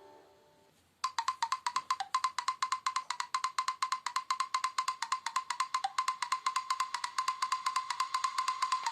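Preloaded Nokia Lumia 521 ringtone: a fast, even run of sharp percussive clicks, about nine a second, over a steady high tone, starting about a second in. Before it, the end of the previous tone fades out.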